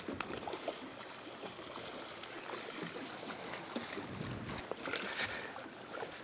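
Water splashing and sloshing beside a boat's hull as a hooked schoolie striped bass thrashes at the surface, a little louder after about four seconds.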